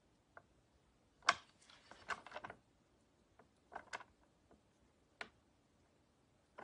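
Faint, scattered light ticks and scratches of a paper blending stump rubbed over a painted porcelain plate to lift out highlights, the loudest about a second in and a short cluster just after.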